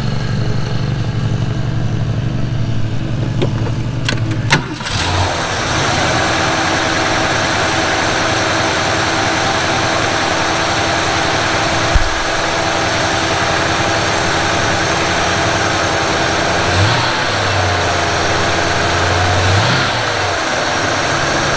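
Ford 302 V8 engine running at a steady idle, its note settling in about five seconds in. A single sharp knock comes about halfway through, and near the end the engine's pitch sags briefly and comes back up.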